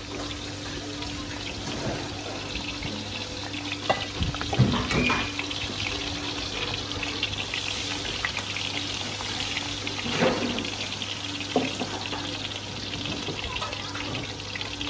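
Bánh xèo crepes frying in deep oil in several steel woks: a steady sizzling hiss, with a few sharp knocks of metal on the woks.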